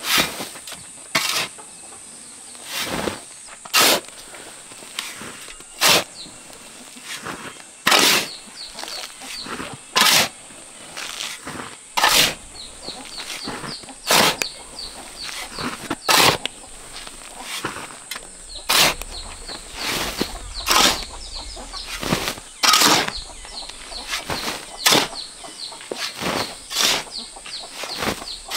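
A metal shovel scrapes across a concrete floor as it scoops and turns over a dry cement and sand mix, one short loud stroke about every two seconds. Faint bird chirps come between the strokes.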